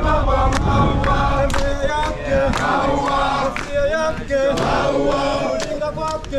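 A group of male voices singing a song together, with sharp hits keeping a beat about twice a second.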